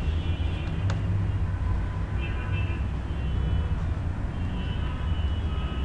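Steady low background rumble, with a single faint click about a second in.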